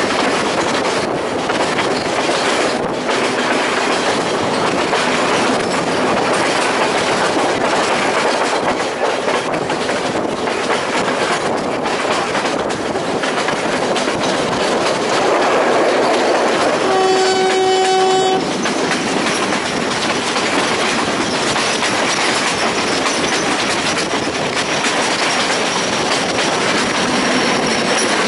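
Passenger train running, heard from an open carriage window: steady rumble and clatter of the wheels on the rails. A little past halfway the locomotive's horn sounds once, a single steady blast of about a second and a half.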